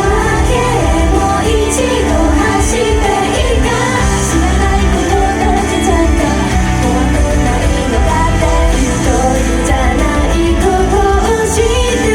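Japanese idol pop song with a woman's lead vocal over a loud, bass-heavy backing track, played through a live venue's sound system.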